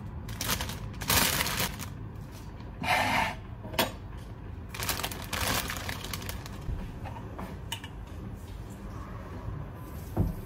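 Plastic bag of salad greens (spinach and arugula) crinkling and rustling in several short bursts as it is handled and opened, with a sharp click in the middle and a dull knock near the end.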